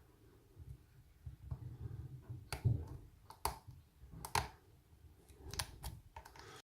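Hook pick and tension wrench working in the keyway of an American Lock 1205 padlock: faint handling rumble, then a scatter of sharp, irregular metallic clicks from about two and a half seconds in as the pins are picked.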